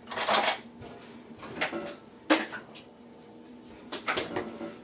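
Kitchen handling sounds: four short knocks and rustles, like cupboards and dishes being moved.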